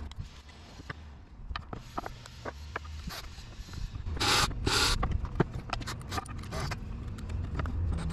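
Ryobi cordless drill driving a screw through a metal folding leg bracket into a wooden bed leg in two short bursts about four seconds in. Before them come a few light clicks of screws and metal hardware being handled.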